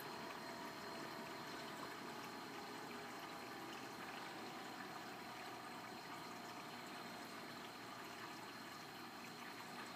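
Faint, steady rush of water circulating in an aquarium driven by a VorTech MP40w propeller pump, with a thin steady high whine behind it.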